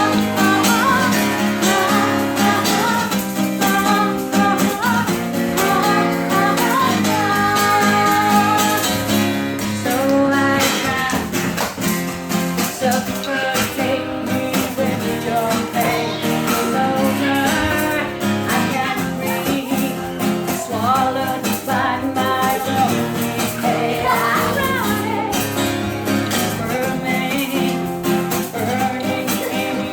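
Live acoustic song: an acoustic guitar playing under a singing voice, with the vocal line gliding and bending between held notes.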